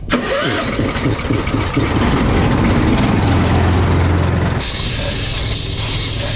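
A heavy machine's engine running steadily, growing louder over the first two seconds and easing back a little after about four and a half seconds.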